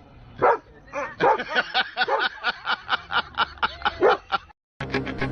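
A dog yelps once, then barks in a fast run of short, high yips, about four or five a second, for about three seconds. The barking stops at about four and a half seconds, and music starts near the end.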